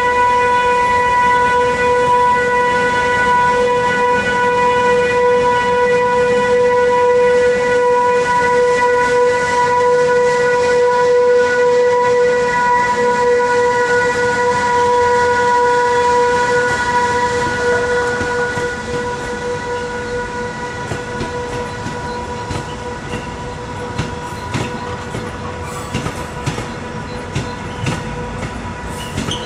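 Newag Dragon electric locomotive pulling away with a loaded coal train: a steady high whine from its electrical traction equipment over rolling noise, fading after about 17 seconds. Then the loaded open coal wagons roll past with sharp wheel clacks over the rail joints.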